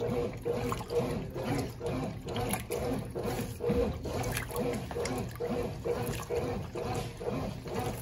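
1992 Brastemp Baby Mondial 4 kg top-loading washing machine agitating its load in the first-rinse water: the Dual Action agitator swishes back and forth at about two strokes a second, the water sloshing, with a tone that rises and falls on each stroke.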